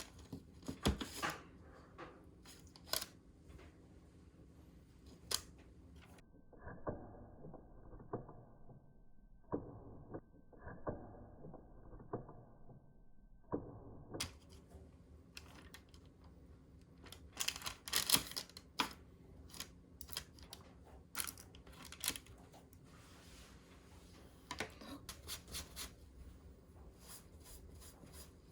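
Kitchen handling sounds: scattered clicks, taps and snips, with plastic packaging being cut and torn open.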